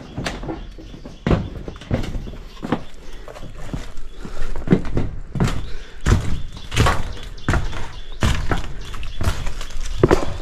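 Footsteps on corrugated metal sheets strewn with dry leaves: irregular dull thuds about one or two a second.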